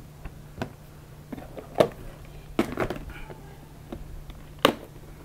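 Clear plastic tackle box and lures being handled: a few sharp plastic clicks and knocks, the loudest about two seconds in and near the end, over a steady low hum.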